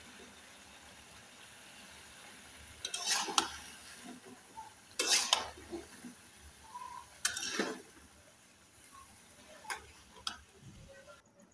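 Metal spatula stirring and scraping cubes of bottle gourd into chicken curry in a metal pan, in a few short scrapes about two seconds apart, over a faint steady sizzle.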